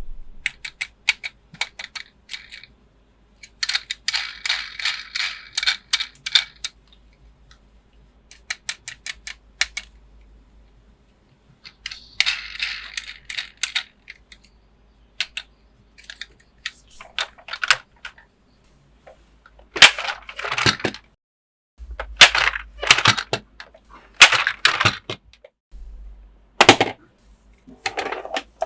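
Hard plastic toy pieces being handled: quick runs of clicks and rattles, with louder sharp knocks in the second half.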